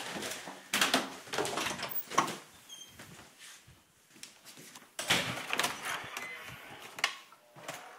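Irregular knocks, clicks and rustling of a door being handled and someone moving about, with a quieter stretch in the middle.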